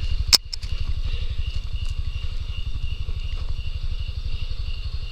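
A small vehicle engine idling steadily with a low, fast, even pulse, with one sharp click about half a second in.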